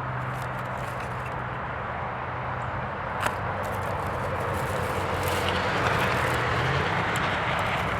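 A motor vehicle's steady engine hum with road noise that swells to its loudest about six seconds in, the engine pitch rising shortly after; a single sharp click a little past three seconds.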